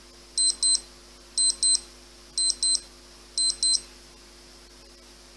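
Spintso Ref Watch 2X's electronic beeper sounding four double beeps, one pair a second, high and piercing. It is the interval-training alert that the period has run out and it is time to change activity.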